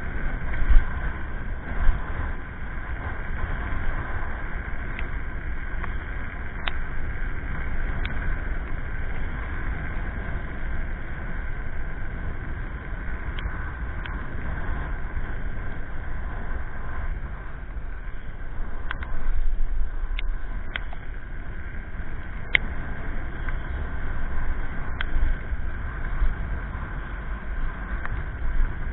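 Wind buffeting the microphone of an electric scooter riding along a road, with a faint steady high whine and scattered sharp clicks and taps.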